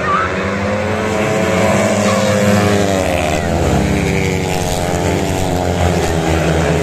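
Several speedway bikes' 500 cc single-cylinder methanol engines racing past under full throttle. Their note climbs, then drops about three seconds in as the bikes sweep by through the bend.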